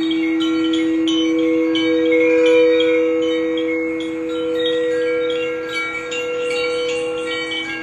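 Sound-bath wind chimes tinkling over a steady ringing drone: a low held tone with a fainter higher tone above it, and many short bright chime notes struck irregularly throughout.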